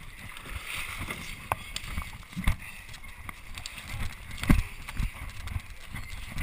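Footsteps running through dry leaf litter and brush: irregular heavy footfalls and crunches, the loudest about halfway through.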